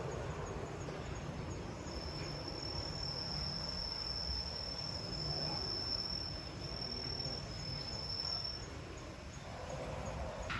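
An insect trilling in one steady high note, starting about two seconds in and stopping shortly before the end, over a low outdoor rumble.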